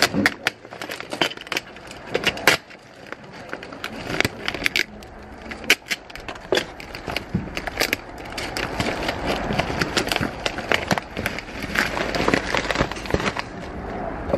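Packing materials handled close to the microphone: crinkling plastic and rustling paper, with a clear adhesive release strip peeled off a kraft mailing envelope. Many irregular small clicks and crackles run through it.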